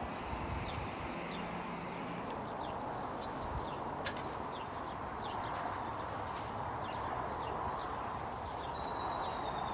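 Honeybees buzzing in a steady mass around an open hive during a nuc transfer, with scattered light clicks and one sharp knock about four seconds in.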